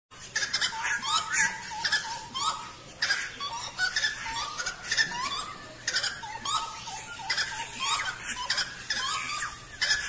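A pair of grey-cowled wood rails calling in duet: loud, repeated short rising notes in quick succession, going on without a break.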